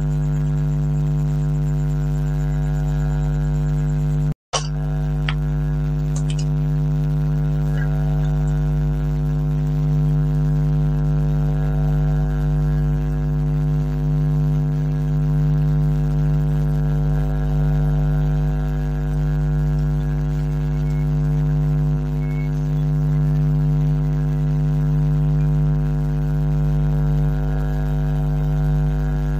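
Loud, steady electrical mains hum, a buzz with a stack of evenly spaced overtones, that cuts out for an instant about four seconds in. A few faint clicks follow.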